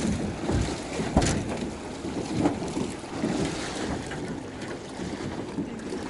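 Wind buffeting the microphone over river water lapping at the shore, with a sharp knock about a second in and a few fainter knocks after it.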